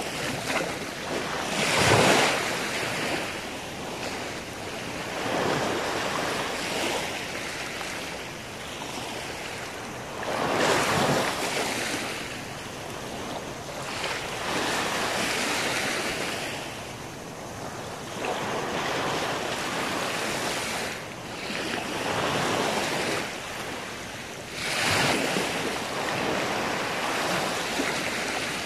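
Small sea waves breaking and washing up a sandy beach, swelling and fading every few seconds, with the strongest surges near the start, in the middle and near the end.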